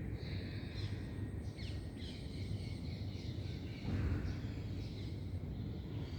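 Birds chirping and calling over a steady low background rumble, which swells briefly about four seconds in.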